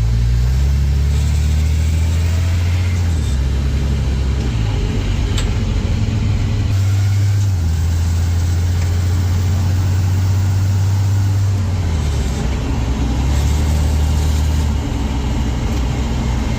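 1952 Chevy 3100 pickup's engine running under way on a test drive after a new automatic shifter install, its low note stepping up and down several times as the truck pulls away and changes speed.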